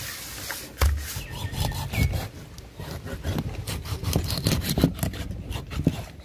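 A fish being rubbed with salt against the side of a steel basin, then a large knife chopping and sawing through the fish on a wooden chopping block, with repeated sharp knocks of the blade on the wood.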